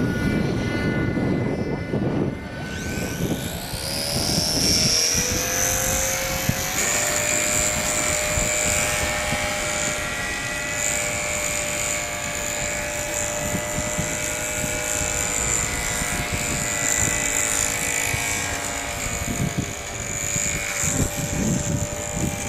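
Propeller and motor of a scratch-built radio-controlled bird model spinning up with a rising whine about three seconds in, then running at a steady high pitch.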